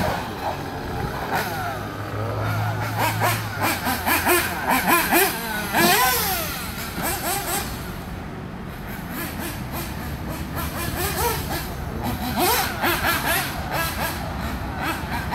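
Mugen Seiki MBX6R 1/8-scale nitro buggy's small glow engine revving up and down as it is driven, its high-pitched whine rising and falling over and over with the throttle. It grows fainter about eight to ten seconds in, as the car runs off across the grass.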